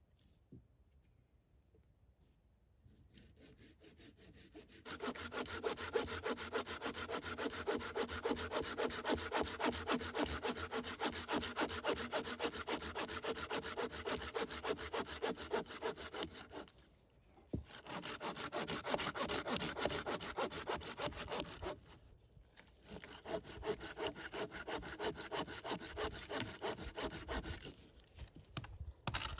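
Hand saw cutting through wood with quick, steady back-and-forth strokes. It starts a few seconds in and runs in three stretches, broken by two short pauses.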